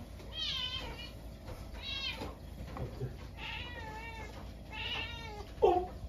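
A domestic cat meowing at a stink bug it is watching: four high, wavering calls, then a shorter, louder, lower call near the end.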